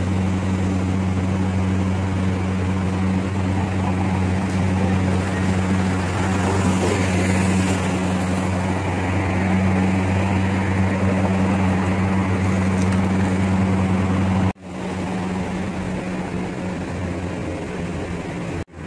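Busy city street traffic with a steady low hum of engines running throughout. Two brief dropouts where the recording cuts, the first about fifteen seconds in and the second near the end.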